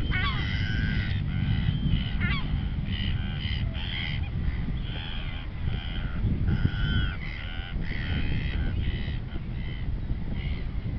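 Black-headed gulls calling, a string of short, harsh squawks one after another. Wind rumbles on the microphone underneath.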